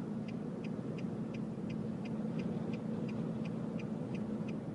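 Car's hazard-flasher relay ticking evenly, about three ticks a second, over steady road noise inside the moving car's cabin.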